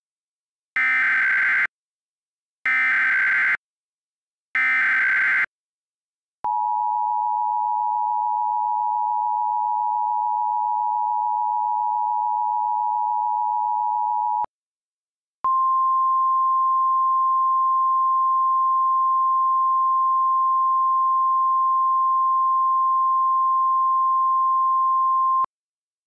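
Emergency alert broadcast tones: three short bursts of screeching digital header data about a second apart, then the two-tone attention signal held steady for about eight seconds. After a one-second gap comes a single steady tone, a little higher, for about ten seconds.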